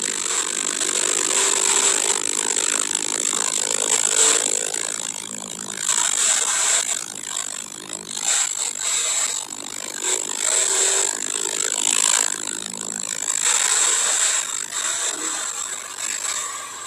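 Porsche 992 Carrera 4S at speed on a soaked track, heard from inside the car. A loud hiss of tyre spray and wind sits over its twin-turbo flat-six engine, swelling and easing with throttle and braking.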